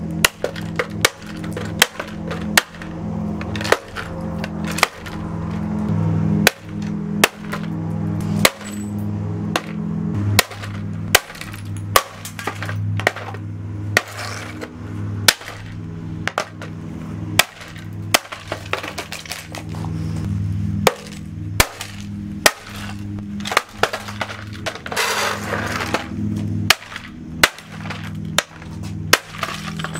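A vintage Osterizer 14-speed blender breaking apart: a run of sharp, irregular metal and plastic clanks and cracks, very roughly one a second, with pieces falling onto concrete. Steady background music plays underneath.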